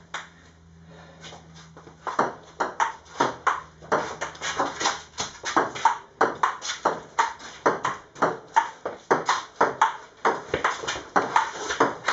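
Table tennis rally: the ball clicking off bats and table in a quick, even rhythm of about three hits a second, starting about two seconds in.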